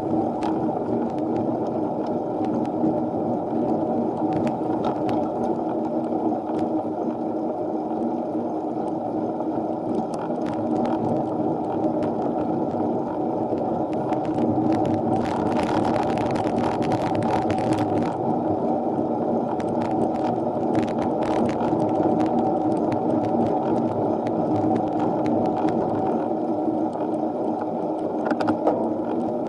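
Steady, muffled wind and riding noise from a mini-velo bicycle climbing a steep road, picked up by an action camera's microphone. Scattered short clicks run through it, with a brighter hissing stretch for a few seconds around the middle.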